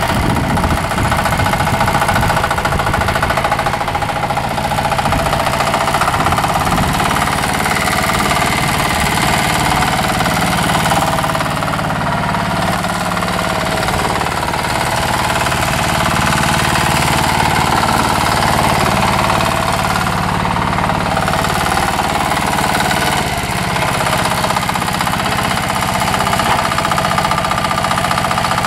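Chinese 10 horsepower air-cooled single-cylinder diesel on a Sears Suburban ST16 garden tractor, running steadily with a hard, rapid diesel knock as the tractor is driven. The engine is kept below full speed because it is still being broken in.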